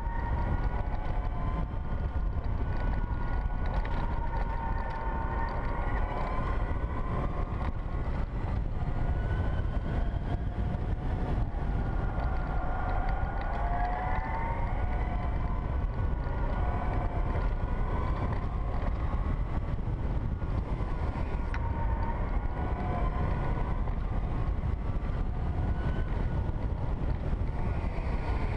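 2012 Zero S electric motorcycle's motor whine, rising and falling in pitch several times as the bike speeds up and slows down, over a steady rush of wind and road noise.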